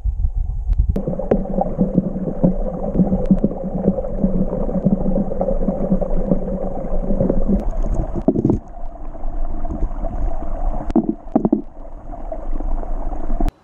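An engine running steadily, with clicks and knocks over it; it cuts off suddenly near the end.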